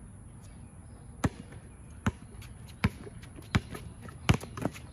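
Basketball being dribbled on a hard outdoor court: six sharp bounces, about one every three-quarters of a second, starting a second or so in, with the last two coming quicker near the end.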